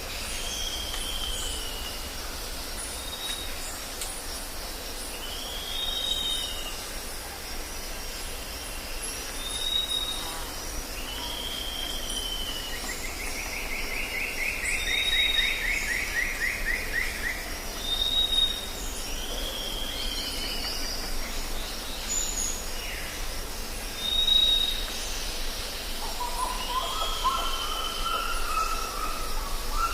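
Jungle ambience with several birds calling: short arched calls every few seconds, brief high whistles, a fast trill in the middle and a run of lower notes near the end, over a steady high hiss and a low rumble.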